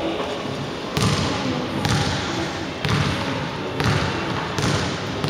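A ball bouncing on a hardwood gym floor, five bounces about a second apart, each echoing briefly in the large hall.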